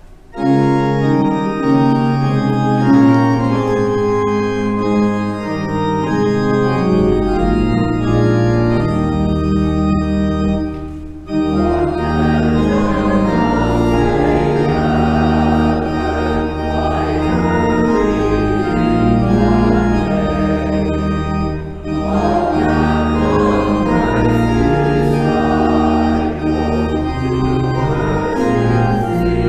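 Church organ playing the opening hymn in held chords, with a deep pedal bass line entering about seven seconds in. There are short breaks between phrases, about a third and two-thirds of the way through.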